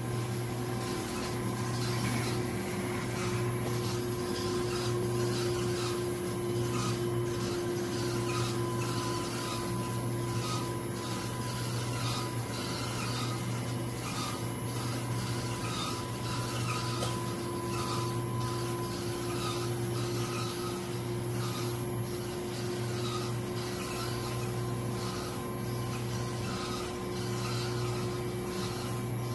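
Universal tensile testing machine running steadily while its crosshead pulls a polyurea test strip during a tensile and elongation test. A constant motor-and-drive hum runs with an uneven rubbing, scraping noise over it.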